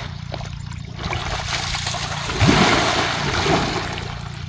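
Shallow muddy pond water splashing and churning as people wade and grope through it by hand for fish, loudest about halfway through.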